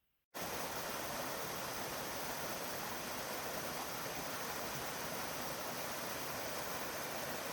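A steady, even rushing hiss that cuts in suddenly just after the start and holds at one level throughout.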